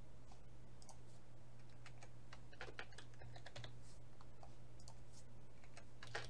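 Computer keyboard typing: irregular key taps, with a louder quick run of taps near the end, over a steady low hum.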